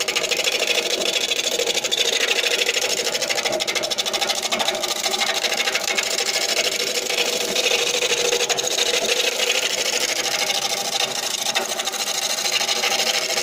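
Wood lathe running with a gouge roughing down a spinning spalted-birch blank: a steady loud cutting rasp with a fast, even flutter from the turning wood.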